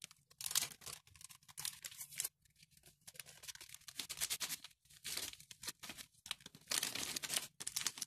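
A small paper sachet rustling and crinkling in the fingers as it is opened and shaken out over a bowl of flour, in irregular papery crackles.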